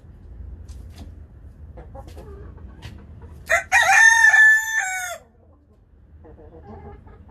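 A rooster crowing once, loudly: a short first note, then a long held note that drops away at the end. Hens cluck softly before and after it.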